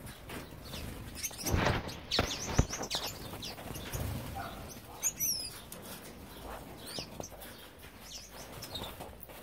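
Gouldian finches fluttering and chirping: a loud burst of wing flapping about one and a half seconds in, then scattered short, high chirps.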